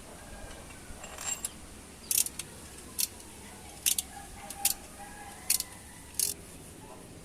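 Sharp metallic clinks of hand tools and steel engine parts being handled, about eight at irregular intervals.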